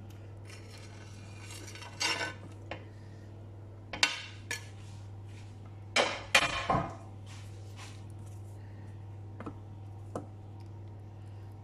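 A kitchen knife and cutting board clinking and scraping against the rim of a stainless-steel food-processor bowl as cubed goat cheese is pushed in: a handful of short, scattered clinks and knocks, bunched together a little past halfway, over a steady low hum.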